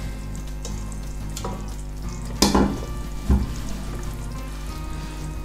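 Spoon stirring a ragù of minced beef and sausage as it simmers in a stainless-steel pot, with a low sizzle and a few sharp metal knocks against the pot about one and a half, two and a half and three seconds in.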